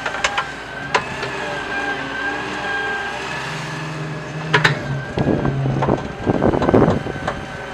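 Wheeled excavator running, its engine humming under a steady high hydraulic whine while the bucket digs. There are a few sharp metal clanks, then from about halfway through the bucket loudly crunches and scrapes through dirt and stones.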